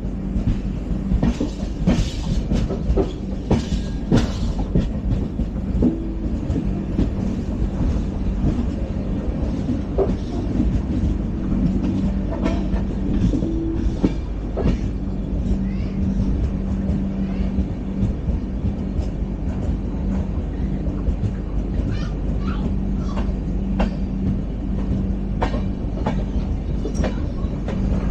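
LHB passenger coach running along the track at speed: a steady rumble with a low hum beneath, and scattered clicks and knocks from the wheels over the rails, thicker in the first few seconds.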